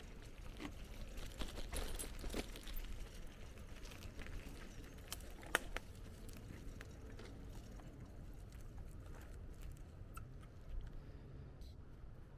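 Bicycle riding: a steady low rumble from the tyres and air, with scattered small clicks and rattles from the bike and one sharper click about five and a half seconds in.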